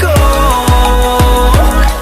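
Background pop song: a singer holds the word "go" over a beat of deep, pitch-dropping bass kicks, about two a second.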